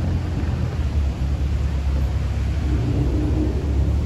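A Ferrari twin-turbo V8 supercar's engine runs at low revs with a steady, deep rumble while the car rolls slowly through traffic.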